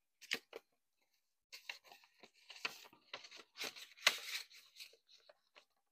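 Paper banknotes and a paper envelope rustling and crinkling as cash is handled and stuffed into the envelope, with a couple of light clicks at first and the loudest rustle near the end.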